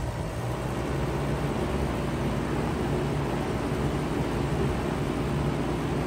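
2013 Bard 3.5-ton wall-hung heat pump running in cooling mode: a steady hum from the compressor and condenser fan, getting slightly louder about a second in.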